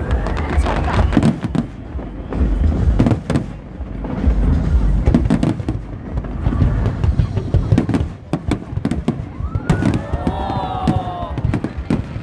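Fireworks display: a dense run of bangs and crackles over a deep rumble, coming in several loud surges.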